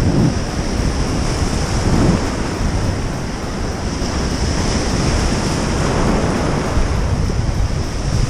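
Small surf waves breaking and washing up a shallow beach close to the microphone, a steady wash that swells and eases, with wind buffeting the microphone.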